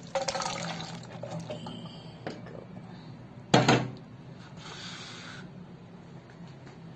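Canned chickpeas being drained in a perforated stainless-steel colander: the can's liquid pours through in the first second, then a loud clatter about halfway through as the chickpeas tip into the metal colander.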